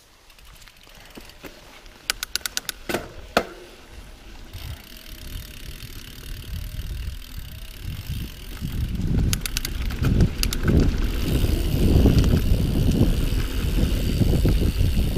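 Mountain bike on a dirt trail: runs of sharp metallic clicks and rattles from the bike about two to three seconds in and again around ten seconds, under tyre rumble and wind buffeting on the microphone that grow steadily louder.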